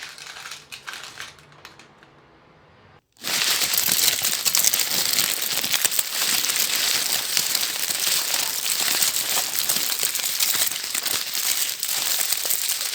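Foley fire effect: paper crumpled and handled without pause to imitate crackling flames, edited. It is faint at first and comes in loud and dense about three seconds in, a steady mass of crackles.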